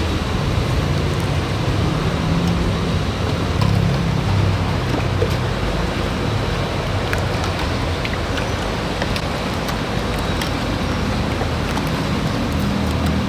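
Steady road traffic noise with a low rumble and light, scattered clicks.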